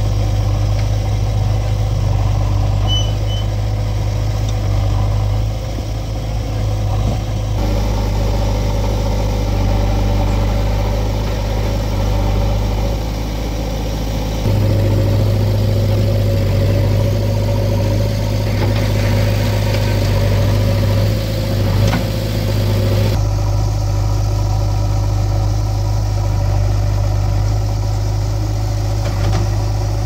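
Diesel engines of a JCB 3DX backhoe loader and farm tractors running steadily, with the engine note shifting abruptly a few times.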